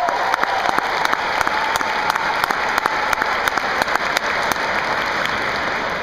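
A large audience applauding, a dense steady clatter of hand claps that begins to die down near the end.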